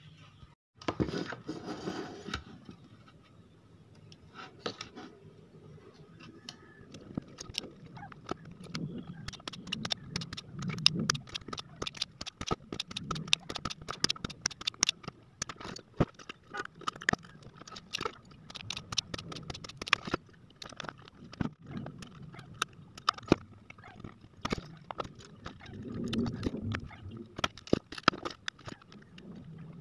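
Many small sharp clicks, taps and scrapes of hand tools and a soldering iron against a circuit board while burnt components are desoldered, densest in the middle, with a faint steady high tone underneath.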